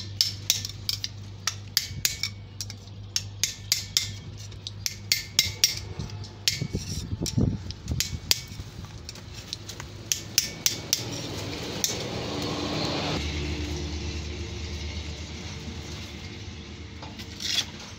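Quick irregular metallic clinks and taps of a steel tool against the ram of a hydraulic bottle jack, about two or three a second, thinning out after about twelve seconds. A steady low hum comes in about thirteen seconds in.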